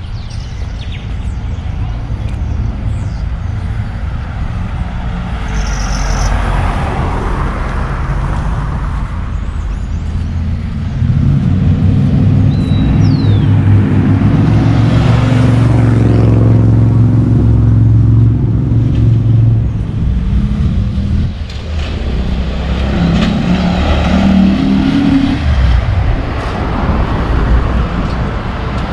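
Road traffic: several vehicles passing one after another, with a large engine's steady low hum loudest for several seconds through the middle.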